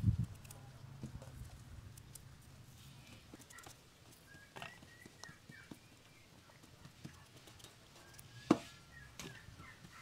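Small kitchen knife scraping and cutting a raw potato by hand, with scattered small clicks and knocks as the cut pieces land in a wooden bowl, and one sharp knock near the end.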